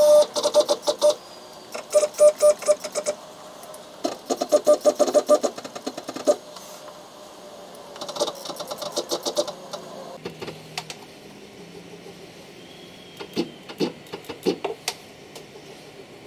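Axis motors of a CNC-converted Harbor Freight/Grizzly X2 mini mill jogging in four short bursts under pendant control, each a whining buzz with rapid ticking, as the end mill is moved to centre over a hole. A few scattered clicks follow.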